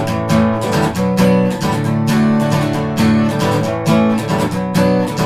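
Music: an acoustic guitar strummed in a steady rhythm, with no singing.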